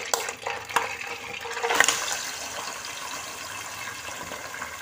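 Yogurt-marinated chicken sliding off a plate into hot cooking oil in a nonstick pot: a few sharp knocks of the plate on the pot, then the oil bursts into a loud sizzle as the wet marinade hits it and settles into a steady frying hiss.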